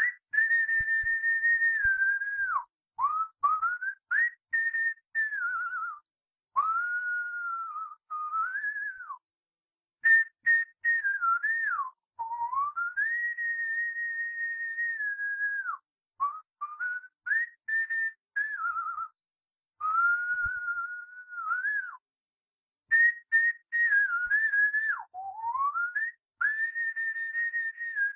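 Someone whistling a slow tune: long held notes with slides up and down between them, in phrases broken by short pauses.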